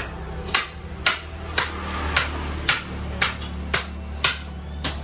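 Hammer blows struck at a steady pace of about two a second, each a sharp knock, over a low steady hum.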